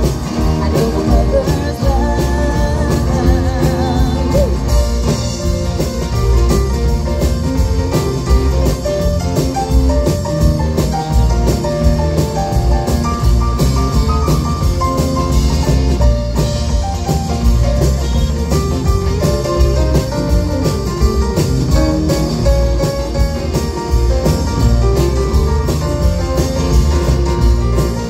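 Live country band playing an instrumental section: electric guitar melody lines over keyboard and a drum kit keeping a steady beat, amplified through a PA.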